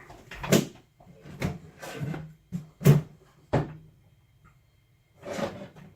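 Someone rummaging through a toolbox: a string of knocks and clatters, a short pause, then more clatter near the end.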